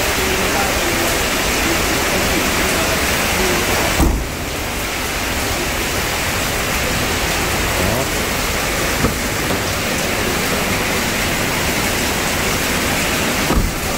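Steady rain on a corrugated metal roof, heard as an even hiss. A single thump comes about four seconds in and another near the end.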